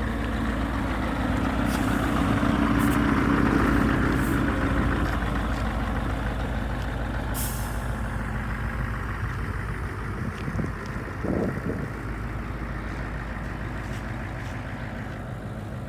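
Scania R143 450's 14-litre V8 diesel idling steadily, a little louder between about two and five seconds in, with a brief sharp hiss about halfway through.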